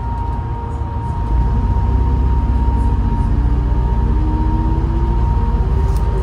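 Bus engine and drivetrain under way, with a deep rumble that strengthens about a second in, a steady high whine, and lower whines that rise slowly in pitch as the bus gathers speed. The whines come from its ZF automatic gearbox and turbocharger, the gearbox described as knackered.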